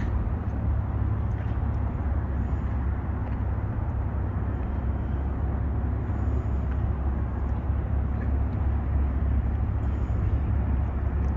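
Steady low rumble with a hiss over it, wind buffeting the microphone, without any distinct events.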